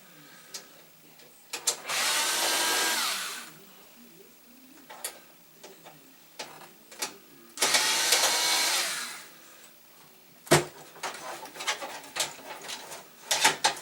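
Power driver backing out the screws that hold a PC power supply in its case: the motor runs twice, about a second and a half each time, its whine rising and falling in pitch. Small clicks come between the runs, and there is a sharp knock near the end.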